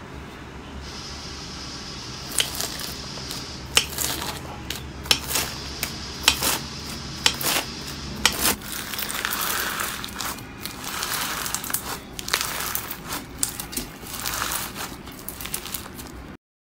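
Slime being squeezed and pressed by hand, giving many sharp clicks and crackling pops. A low hum under the first half stops partway through, and everything cuts off suddenly near the end.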